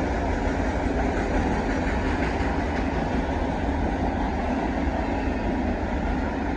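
Autorack cars of a long freight train rolling past at a grade crossing: a steady noise of steel wheels on the rails.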